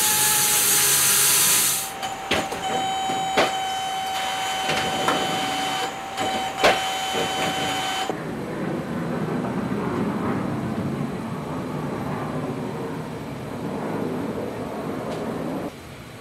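Wood-Mizer LT300 bandsaw mill cutting walnut burl: a loud hiss from the blade in the wood that stops about two seconds in. Then a steady whine from the mill with three sharp clunks, giving way about eight seconds in to a lower running rumble that drops off just before the end.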